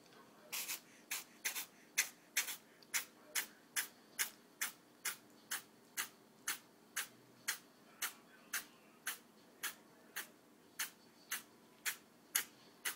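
Kitten sneezing over and over in a rapid fit: more than twenty short, sharp, hissy sneezes at a steady pace of a little over two a second, starting about half a second in.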